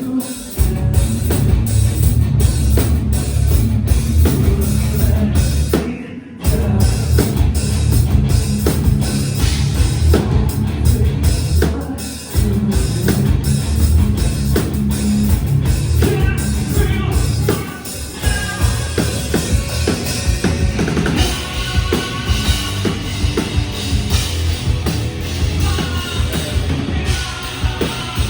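Live rock band playing loud, with a heavy drum kit and bass under the guitars; the music breaks off briefly about 6, 12 and 18 seconds in before crashing back in.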